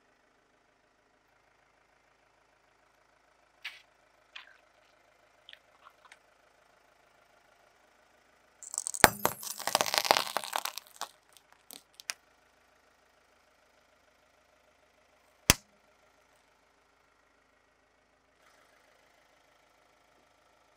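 Car tyre crushing brittle objects on asphalt: a dense crackling crunch lasting about two seconds near the middle, then a single sharp crack later on. A faint idling car engine runs underneath.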